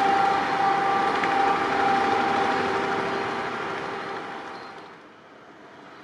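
A passing passenger train's wheels running on the rails, with a steady high tone held over the rumble; the whole sound fades away over the last couple of seconds as the train draws off.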